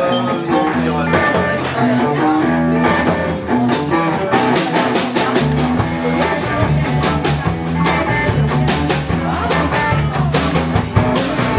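Live rock band playing an instrumental intro on amplified electric guitars, with a steady beat of sharp hits joining about four seconds in and the low end filling out around the middle.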